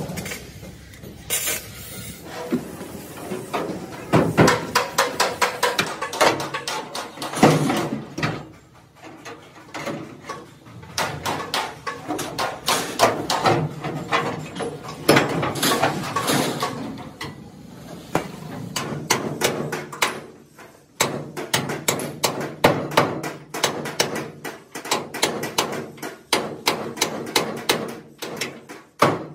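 Hammer blows on the steel frame of an excavator cab, struck in quick runs of several strikes with short pauses between them.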